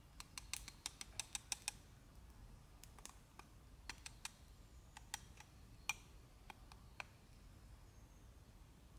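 Faint, light, sharp clicks: a quick run of about six a second for the first second and a half, then scattered single clicks.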